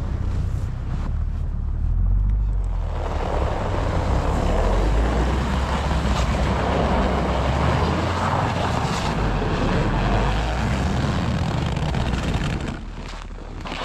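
Vehicle engine running with a steady low rumble. About three seconds in, a loud rushing noise joins it and falls away near the end.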